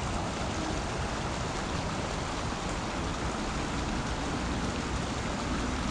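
Small creek running over its rocky bed, a steady rushing of water.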